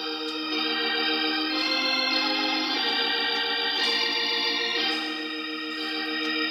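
Organ playing held chords that change every second or two.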